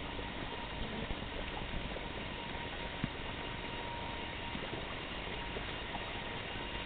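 Steady hiss of background noise with a faint steady hum and a few scattered faint clicks, one sharper click about three seconds in.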